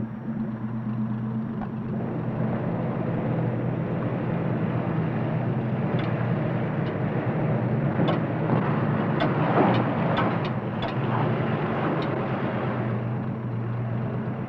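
Four-wheel-drive truck engine running steadily, with scattered sharp clicks and crackles over its sound between about six and twelve seconds in.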